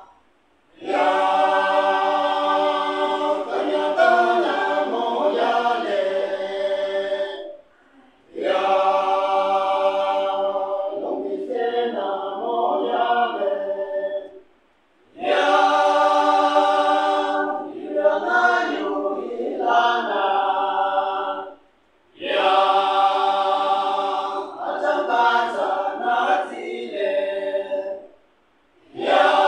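Men's choir singing a cappella in harmony: sustained chords in phrases of about seven seconds, with a short break for breath between each phrase.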